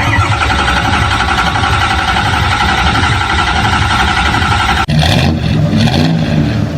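Motor-vehicle engine running steadily. About five seconds in it changes abruptly to a lower, wavering engine sound.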